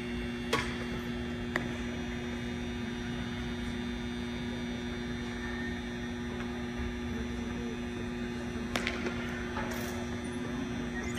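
Steady low hum of a large arena's building machinery, two constant tones over a faint even hiss, with a couple of faint clicks near the start.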